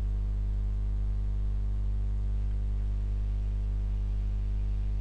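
Steady low electrical mains hum with a row of higher overtones over a light hiss, unchanging throughout.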